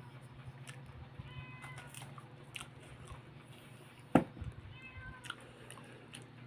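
A cat meowing a few times in short high calls, with one sharp click about four seconds in, over a steady low hum.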